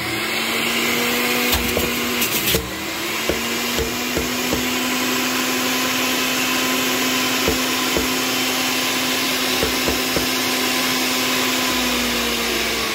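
Centrifugal juicer motor running at high speed, shredding green apples pressed down the feed chute, with a steady whine and occasional knocks. Its pitch sags briefly under load at the start and again about two and a half seconds in, and near the end it begins to wind down as the motor is switched off.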